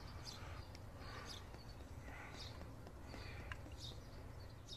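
Faint pouring of motor oil from a quart bottle through a funnel into the engine's oil filler, with short high chirps about once a second over a low steady hum.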